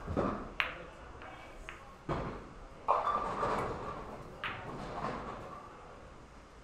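Pool shot: a cue striking the cue ball, then a run of sharp clicks and duller knocks over the next few seconds as the balls collide, hit the cushions and drop.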